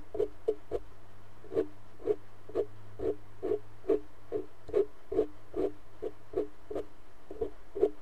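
A makeup brush stroked against the microphone in quick repeated ASMR swipes, about two to three soft brushing pulses a second, over a faint steady hum.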